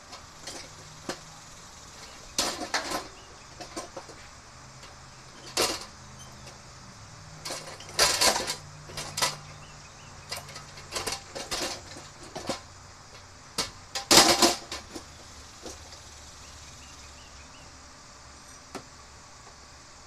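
Scattered sharp clattering knocks, some in quick runs of several, the loudest about eight and fourteen seconds in, over a faint steady low hum.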